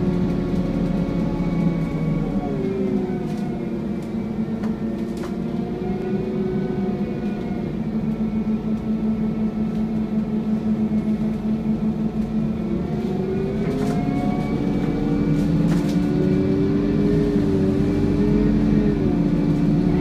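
Scania N230UD double-decker bus making the vacuum-cleaner-like whine that enthusiasts call "hoovering", heard from the upper deck: a steady pitched hum whose pitch dips early, holds, rises again about two-thirds of the way through and dips near the end.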